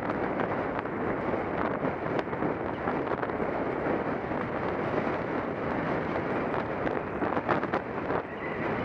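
Wind buffeting the microphone of a camera riding on a moving vehicle: a steady rushing noise, with a few short ticks near the end.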